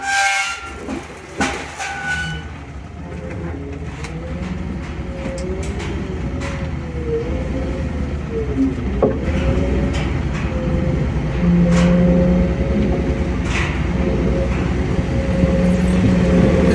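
Loaded car-hauler trailer on the move: a steady low rumble of engine and road noise that slowly grows louder, with clicks and rattles from the trailer and a wavering whine.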